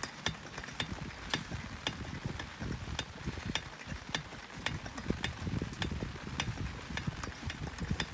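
Wind buffeting the microphone in an uneven low rumble, with sharp irregular ticks and taps a few times a second.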